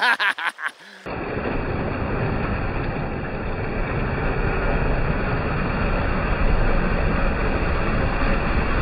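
Creek water churning and splashing as the 1/5-scale electric RC truck's tyres spin in the stream, a loud steady rush that starts about a second in. The truck is hung up on a log under the water, its transmission rubbing on it, so the wheels spin without moving it.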